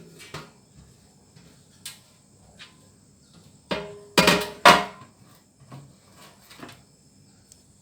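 Metal kitchenware being handled: light clicks and taps, then a loud cluster of three or four clanks about four seconds in, each leaving a short metallic ring.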